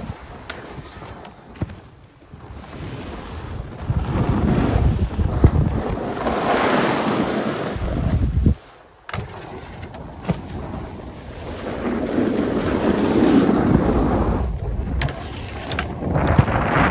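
Wind rushing over the microphone while skiing fast, with skis hissing and scraping over packed, groomed snow. The noise swells and fades, and drops out sharply for about half a second around the middle.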